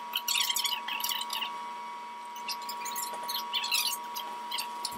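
Cloth rag rubbing wipe-on polyurethane into a rough-sawn cherry board: quick scratchy wiping strokes, dense for the first second and a half, then fewer and spaced out. A faint steady hum runs underneath.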